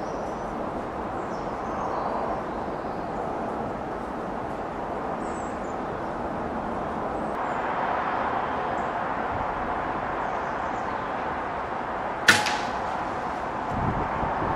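A single shot from a Daystate Huntsman Regal .22 pre-charged air rifle, one sharp crack about twelve seconds in, over a steady outdoor hiss.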